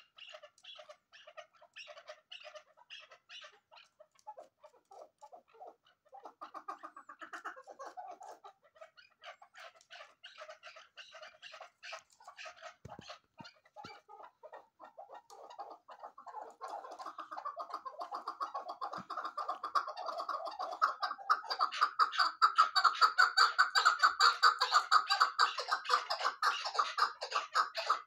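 Chukar partridges calling in a rapid series of repeated clucking notes. The calls build up past halfway and become a loud, fast, continuous chattering toward the end.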